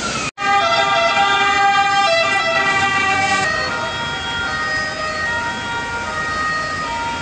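Emergency vehicle sirens, several steady tones sounding at once, loudest for the first three seconds after an abrupt cut, then softer.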